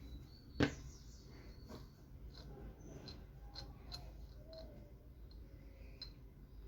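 Light clicks and taps of hand tools against the blender motor's metal parts, with one sharper click about half a second in.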